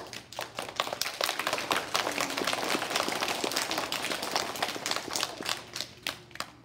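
Audience applauding with many hands clapping, thinning out and dying away near the end.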